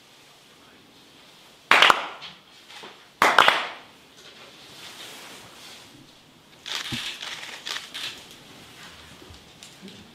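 Two sharp hand claps about a second and a half apart, each ringing briefly in a wooden hall: the paired kashiwade claps of Shinto worship. A softer cluster of rustles and taps follows about seven seconds in.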